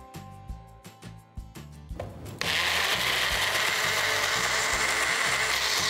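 Personal blender motor starting abruptly about two and a half seconds in and running steadily, grinding a thick paste of roasted hazelnuts, almond oil and vanilla essence.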